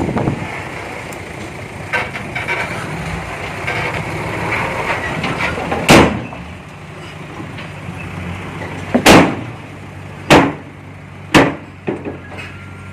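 Diesel engine of heavy earthmoving machinery running steadily, with four loud metal clanks about 6, 9, 10½ and 11½ seconds in and a few lighter knocks.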